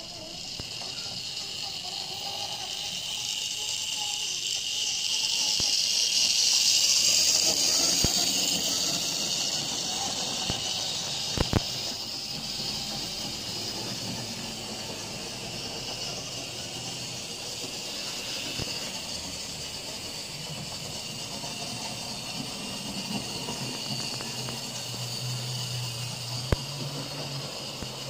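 Mainline OO gauge J72 0-6-0T model tank locomotive running on the layout: its small electric motor and wheels make a steady, high-pitched buzzing whine. The sound swells over the first several seconds, then holds. Two sharp clicks come, about eleven seconds in and near the end.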